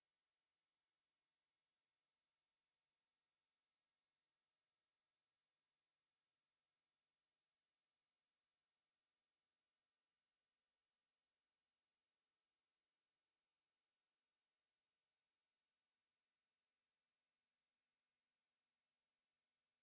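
A steady, unbroken 9456 Hz sine test tone, a single high-pitched whistle-like pitch held without change, used as a speaker test and speaker-cleaning tone.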